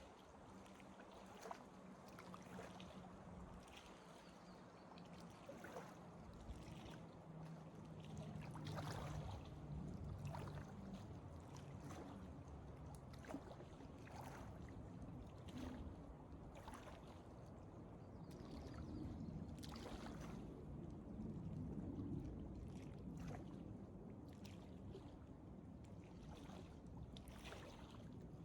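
Footsteps of a hiker walking along a forest trail, a step about every second or two, over a low steady rumble of wind or lake water.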